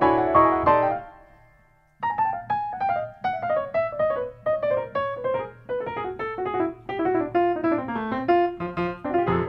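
Solo piano background music: a chord rings and fades away over the first two seconds, then a gentle melody of separate notes starts, mostly stepping downward.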